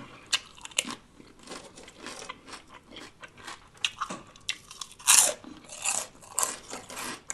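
Close-miked chewing and biting of crunchy food, a run of irregular crisp crunches with the loudest about five seconds in.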